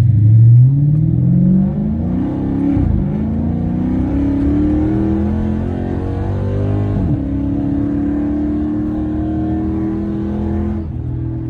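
Chrysler 300 SRT8's 6.4-litre Hemi V8 at full throttle, revving up through the gears. Two upshifts come about three and seven seconds in, and the throttle lifts near the end.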